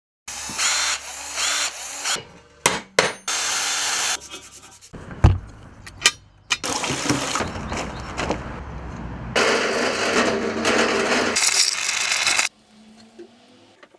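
Spliced-together bursts of metalwork sounds: metal parts clinking and being handled, tools scraping and rubbing, a hard knock about five seconds in, and a steady stretch of harsh power-tool noise for about three seconds near the end.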